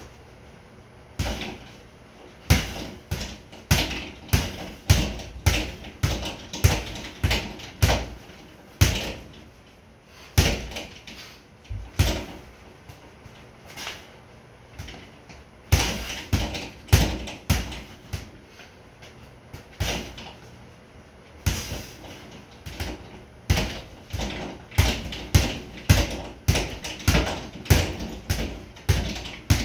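Boxing gloves punching a double-end bag: sharp smacks in quick flurries of several punches, with short pauses between the flurries.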